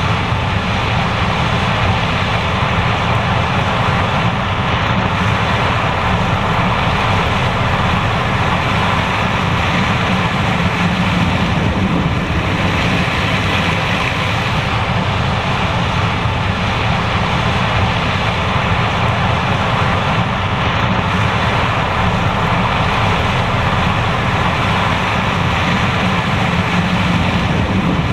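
John Deere S780 combine harvester running steadily while harvesting corn.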